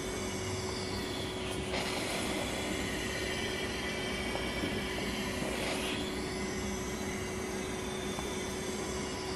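Large home-built model beam engine running slowly with new valves fitted, making a steady hum. A rushing sound swells about every four seconds over it, in time with the engine's cycle.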